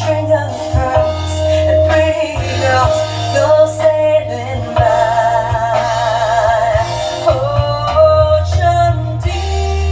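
A song with a singer holding notes with vibrato over heavy bass and drums, played loud through a sound system during a sound check.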